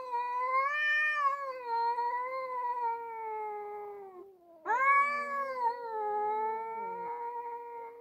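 Domestic cat yowling at another cat in a face-off: a long wavering yowl that drops away about four seconds in, then after a short break a second long yowl rising sharply and slowly falling, the typical drawn-out caterwauling of a territorial standoff.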